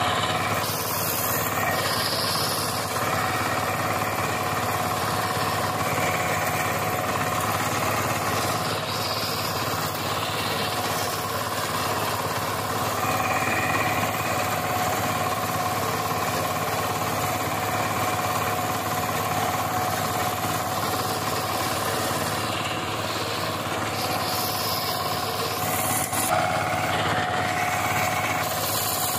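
VST Shakti 130 DI power tiller's single-cylinder diesel engine running steadily under load as its rotary tines churn the soil, with a second power tiller running behind it.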